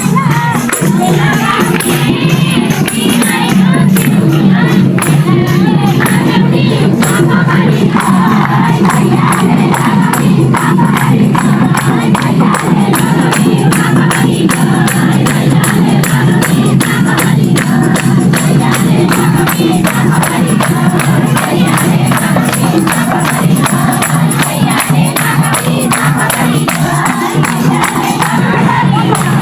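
Loud dance music with group singing and a steady, driving percussion beat, over the noise of a crowd.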